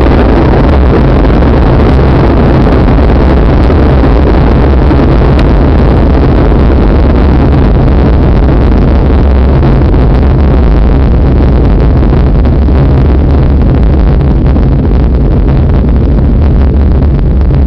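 Loud, steady, distorted roar and deep rumble of a nuclear explosion sound effect, unbroken and heavy in the bass.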